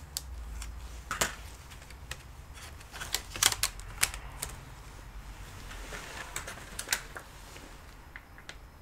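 Irregular sharp plastic clicks and taps from a Lenovo Yoga 460 laptop's keyboard and casing being handled and pressed, with a quick cluster of louder clicks in the middle.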